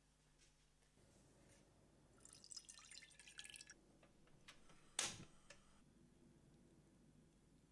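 Milk poured into a pot of oil, faint trickling and dripping. About five seconds in, a single sharp click of a portable gas stove's igniter.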